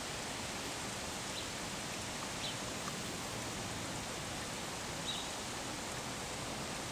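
Steady, even hiss of outdoor background noise, with a few faint, short, high chirps scattered through it.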